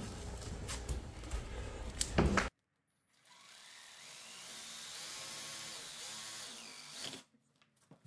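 Reciprocating saw running and cutting through grey PVC electrical conduit for about four seconds, then stopping. Before it come a couple of seconds of clattering and clicking handling noise.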